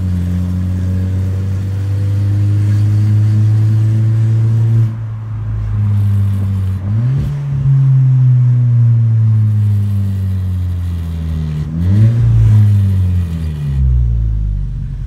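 Volkswagen Jetta 2.0 TSI's turbocharged four-cylinder engine, running through an exhaust fitted with a diffuser that gives it a deep note, heard from inside the cabin while driving. The engine note drops suddenly right at the start, climbs slowly for a few seconds, then twice jumps up sharply, about a third of the way in and again past the middle, each time sagging slowly back down.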